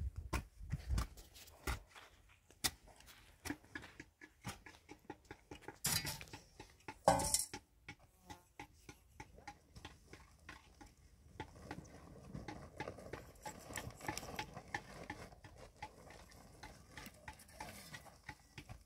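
Gritty scrapes, rustles and knocks as sand and cement are handled by hand on a pile, with two short louder rushes about six and seven seconds in and a steadier grainy scraping in the second half.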